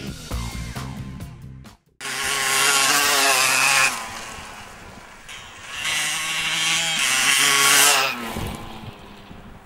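Yamaha DT 125's two-stroke single-cylinder engine revving hard twice, each burst lasting about two seconds, with a quieter stretch between as the dirt bike is ridden off. Music plays for the first two seconds and cuts off suddenly.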